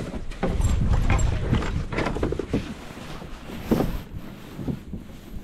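Irregular knocks and scuffs as a hooked bass is brought to the side of a plastic fishing kayak and lifted out by hand, with a low rumble for the first couple of seconds.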